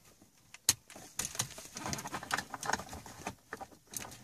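Plastic clicks and rustling from the Audi Q7's MMI center-console trim panel being handled, its connectors plugged back in and the panel pressed into place. There is one sharp click under a second in, then a busy run of small clicks and scraping.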